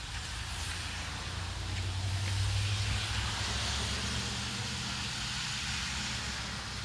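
Light rain falling as a steady hiss, with a passing vehicle's engine hum and tyre noise on the wet road swelling about two seconds in and slowly fading.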